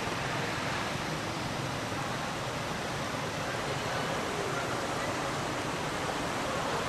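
Steady outdoor background noise: an even hiss with no distinct events.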